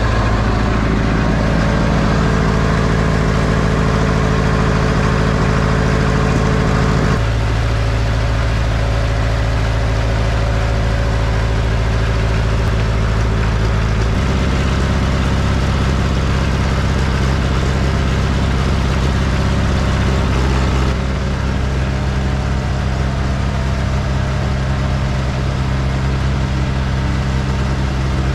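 John Deere 1010 crawler's diesel engine running steadily while the loader bucket is raised and lowered, its tone shifting about seven and fourteen seconds in and dropping slightly in loudness about twenty-one seconds in.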